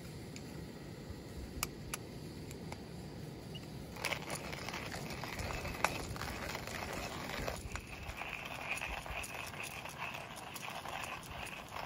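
Coffee beans rattling as they are scooped from a glass jar into a stainless hand coffee grinder, starting suddenly about four seconds in. Then the grinder is cranked, crunching the beans steadily.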